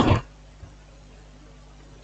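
Faint, steady low electrical hum in a quiet room, just after a spoken word ends.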